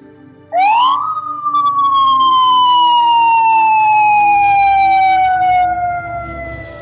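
Ambulance siren giving one long wail: it climbs quickly about half a second in, then falls slowly and steadily in pitch for about five seconds, fading near the end.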